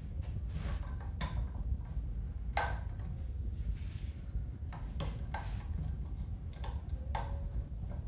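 Irregular clicks and light knocks, about ten spread unevenly, from parts and tools being handled while an old Arno electric fan is taken apart for cleaning.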